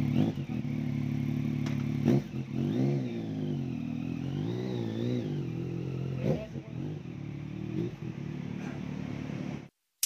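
Yamaha MT-09's 847 cc crossplane three-cylinder engine running through an Akrapovič exhaust, revved up and down a few times, then steady and a little quieter as the bike rides off. The sound cuts off suddenly near the end.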